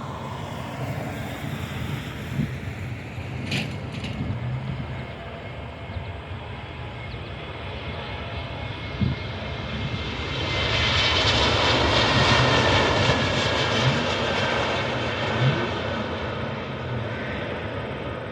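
Airbus A321neo jet airliner passing on approach to land: its engine noise swells to a peak about two-thirds of the way through, with a whine falling in pitch as it goes by, then fades.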